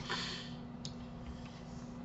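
Quiet room noise with a steady low hum, a short soft hiss at the start, and a faint computer-mouse click just under a second in.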